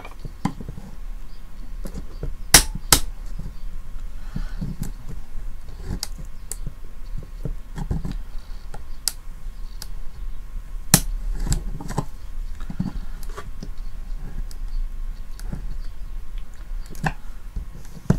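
Screwdriver clicking and scraping against the plastic housing of a digital TV antenna as it is worked open: scattered irregular sharp clicks, with a louder pair about two and a half seconds in and another near eleven seconds, over a faint low hum.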